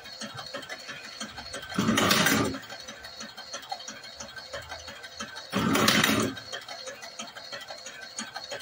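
Motorised semi-automatic cigarette rolling machine running through its cycle: a faint fast ticking throughout, with a louder mechanical burst of under a second twice, about four seconds apart.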